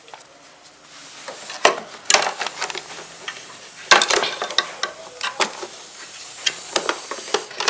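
Plastic parts of a vacuum cleaner being handled, with irregular clicks, knocks and rattles and a few sharper snaps; the motor is not running.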